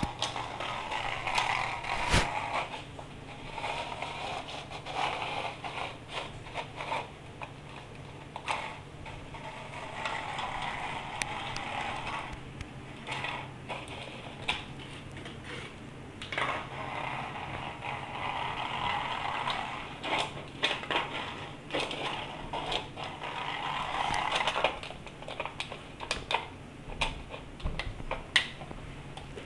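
A clear plastic dome cup lid being nosed and shoved across a tile floor by a ferret. It scrapes along the floor in long stretches, with frequent sharp clicks and clatters as it knocks and tips, over a low steady hum.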